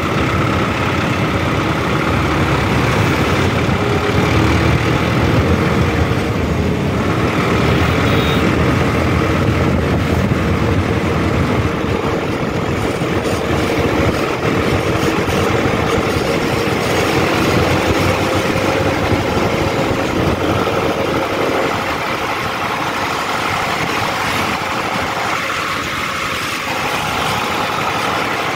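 Mahindra Arjun 605 DI tractor's turbocharged four-cylinder diesel engine running steadily while driving along the road, heard from the driver's seat. The engine note eases slightly about three-quarters of the way through.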